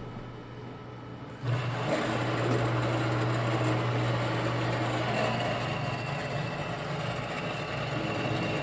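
Fresh-brew coffee vending machine grinding beans: its grinder motor starts about a second and a half in and runs steadily with a hum.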